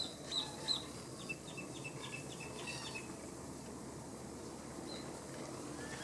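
Wild birds calling: a few sharp, high, down-sweeping calls in the first second, then a quick run of short chirps, about five a second, that stops about three seconds in, over a steady murmur of background sound.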